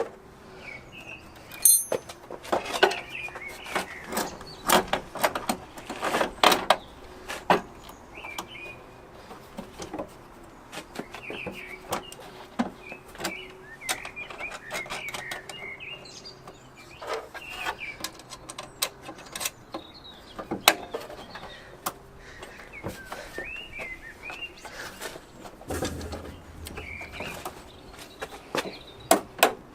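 Irregular knocks, clanks and clicks of a car bonnet being handled and loosely bolted onto its hinges, with small birds chirping throughout.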